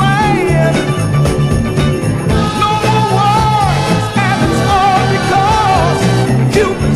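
Soul record playing: a singing voice over a full band with bass and a steady beat.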